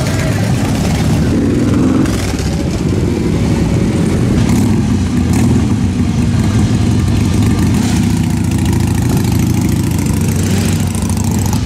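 Several motorcycle engines, Harley-Davidson V-twins among them, running as the bikes roll slowly past one after another.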